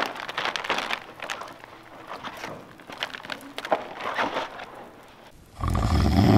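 A bag rustling and crinkling as someone rummages through it. About five and a half seconds in, a loud, low, rasping snore begins.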